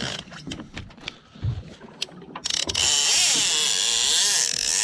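Conventional fishing reel whirring loudly, starting about two and a half seconds in, after a few light clicks.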